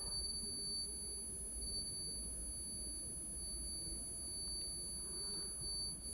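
Steady background noise with no distinct event: two thin, high-pitched constant tones over a low hum.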